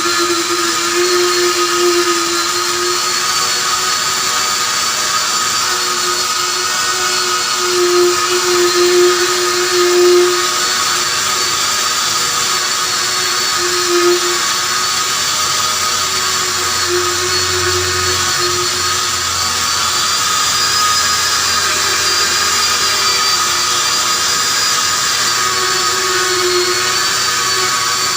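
A high-speed rotary buffing tool running continuously, its whine wavering slightly in pitch as it is worked against the rubber to roughen it for a patch. It is a little louder for a few seconds near the first third.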